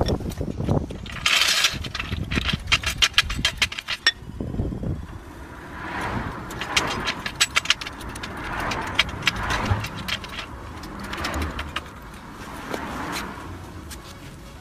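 Hydraulic trolley jack moved into place under the rear axle beam with a quick run of metallic clicking, then its handle pumped in slow strokes, about one a second, each a short scrape and rattle of metal, raising the beam.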